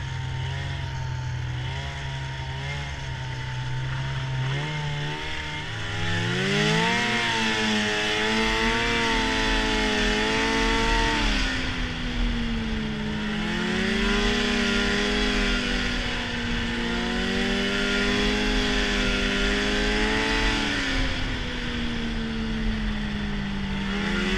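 Arctic Cat snowmobile engine running on the move, with the hiss of track and wind. It holds a steady low note, revs up sharply about five to seven seconds in, then runs at higher speed with the pitch rising and dipping as the throttle is worked.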